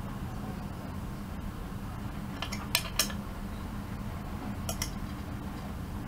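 Metal Allen key clinking and ticking against the bolt heads as the bed-plate bolts are tightened: a few sharp clicks between about two and a half and three seconds in, and two more near five seconds, over a steady low hum.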